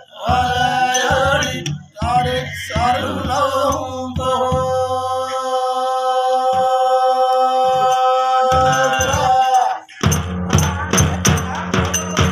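A group of men singing a devotional chant to the beat of large drums, holding one long note through the middle. About ten seconds in, the singing stops and steady drumming takes over, about three strokes a second.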